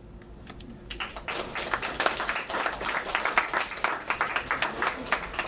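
Small audience applauding. Rapid, overlapping claps start about a second in and die down near the end.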